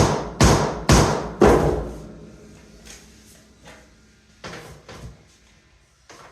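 Four loud blows about half a second apart, typical of a mallet tapping a vinyl floor plank into place, then a few lighter knocks.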